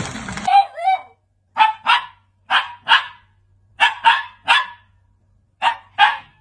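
A dog barking about nine times, in quick pairs and threes with short pauses between.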